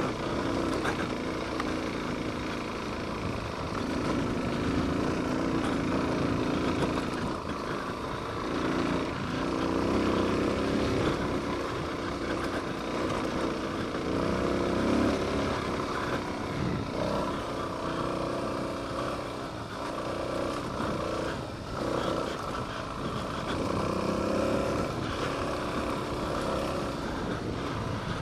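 Suzuki DR-Z400S single-cylinder four-stroke engine riding up a rocky dirt trail, its revs rising and falling repeatedly with the throttle.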